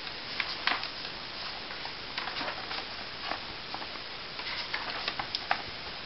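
Pages of a paper workbook being flipped through by hand: a string of soft, irregular paper flicks and rustles.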